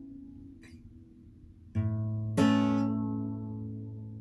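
Acoustic guitar: a chord rings down, then two chords are strummed about half a second apart, a little under two seconds in, and left to ring out as the song's final chord.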